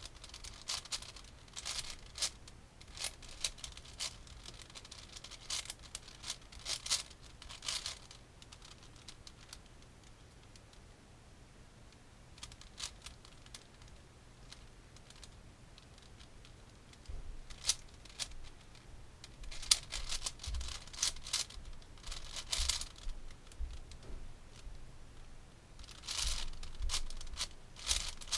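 Plastic twisty-puzzle cube being turned by hand: bursts of rapid clicking and scraping layer turns, with a quieter lull of several seconds in the middle.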